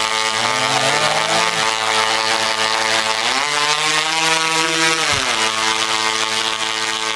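Tesla coil firing sparks from its toroid: a loud, steady electric buzz with a crackling hiss. Its pitch rises about three seconds in and drops back about five seconds in.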